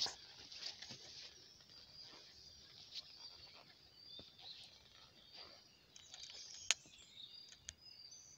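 Footsteps scuffing and crunching irregularly on a dry, leaf-strewn forest trail, with small birds chirping high and faint, busiest near the end.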